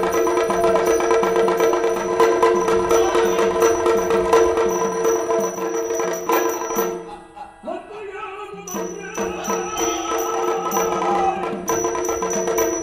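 Yakshagana ensemble music: a steady drone under a regular drum beat, about two strokes a second, with small cymbals ringing in time. The music breaks off for about a second and a half about seven seconds in, then starts again.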